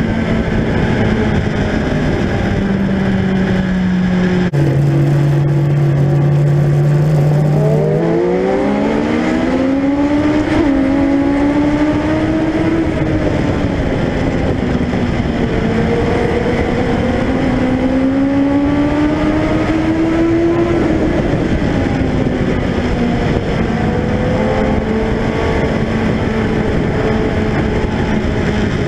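On-board sound of a Legend race car's Yamaha motorcycle engine at race pace over wind and road noise. The engine note drops about four seconds in, climbs hard from about eight seconds, eases, then climbs again before settling, as the car comes off the throttle for the turns and accelerates out of them.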